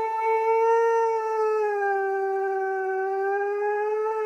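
Husky howling one long unbroken note that wavers slightly in pitch: a protest howl in answer to being told to get out of the bathtub.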